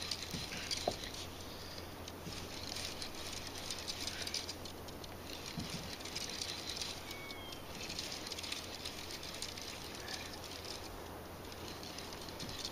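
Old DAM fishing reel being cranked in spells, a fine rapid clicking that comes and goes.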